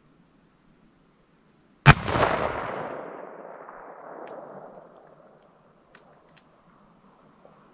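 A single shot from a Uberti replica Colt Walker black-powder revolver, loaded with 50 grains of 3F powder behind a .457 round ball, about two seconds in. Its echo dies away over about three seconds, and a few faint clicks follow.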